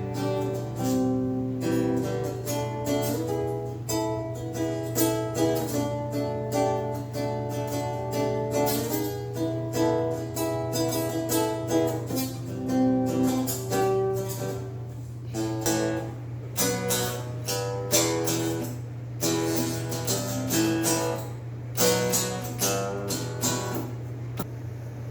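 Background music: an acoustic guitar playing a melody of plucked notes and strummed chords, with a steady low hum underneath.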